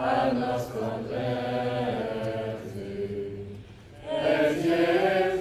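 Crowd of worshippers singing a hymn together in long held notes; the singing dips a little past halfway, then swells louder near the end.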